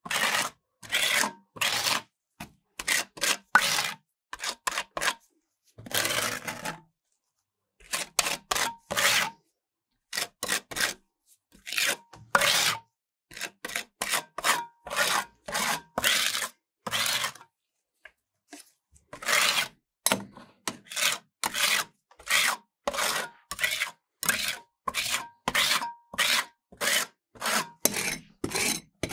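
Metal spatulas scraping across the frozen steel plate of a rolled-ice-cream cold plate in repeated short strokes, with a couple of brief pauses.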